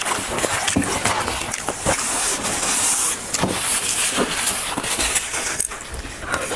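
Close-miked eating sounds: chewing and mouth smacks, a dense run of small wet clicks and crackles.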